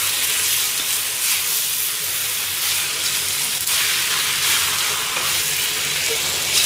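Yaki udon of pork, cabbage, bean sprouts and udon sizzling steadily in a hot wok as it is tossed and stirred with two long-handled utensils, which scrape the pan now and then. Sauce is cooking onto the hot pan.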